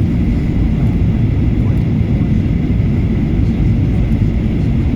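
Steady low rumble of a Boeing 737-800's engines and airflow, heard from inside the passenger cabin during descent, with a faint steady high tone over it.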